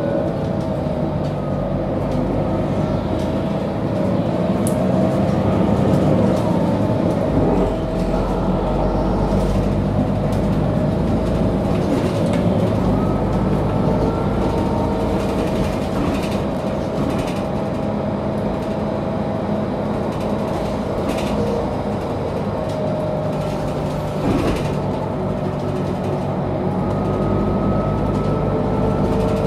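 Onboard sound of a Mercedes-Benz O530G Citaro G articulated bus under way: the diesel engine runs steadily while a drivetrain whine rises in pitch a few times as the bus gathers speed. Occasional short knocks and rattles are heard.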